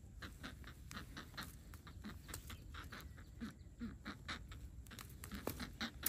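Quick scraping and rustling of a wire bird trap and the feathers of a caught greater coucal as it is handled and pulled out, several strokes a second, with a few short low bird calls now and then.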